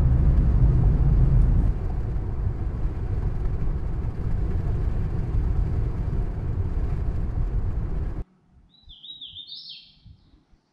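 Car road noise and engine rumble heard from inside a moving car for about eight seconds, cutting off suddenly. After the cut, a quiet outdoor scene with a bird chirping a short series of quick up-and-down notes.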